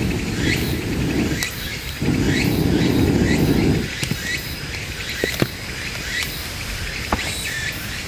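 Wood fire in a steel fire pit, crackling with scattered sharp pops, with two spells of low rumbling in the first half that are the loudest sounds. Short high chirps repeat about twice a second in the background.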